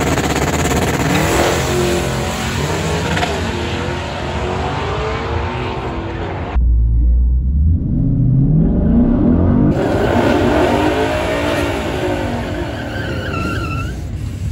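A drag car accelerating hard down the strip, its engine note climbing and dropping through the gears as it pulls away. About six and a half seconds in, the sound switches to inside the cabin of a twin-turbo 2019 Ford Mustang GT: a deep, heavy engine rumble. About three seconds later it switches to the Mustang's V8 heard from outside, revving up and down at the start line.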